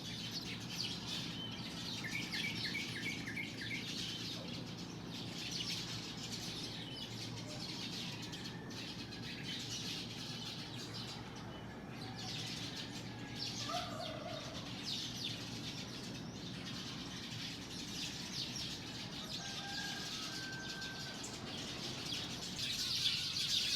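Many small birds chirping together in a dawn chorus, with dense overlapping chirps throughout and a short run of rapid repeated notes about two seconds in, over a low steady background hum.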